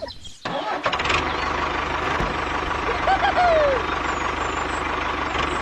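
Engine idling steadily, like a tractor's, starting abruptly about half a second in with an even low pulse. A brief gliding squeaky sound comes a little past the middle.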